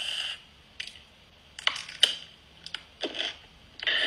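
Whipped-cream aerosol can spraying with a steady hiss that cuts off about a third of a second in. A few scattered short clicks and crackles follow.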